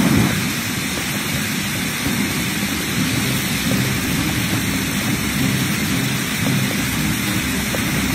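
Fast-flowing floodwater rushing in a torrent, with heavy rain falling: a steady, loud rushing noise.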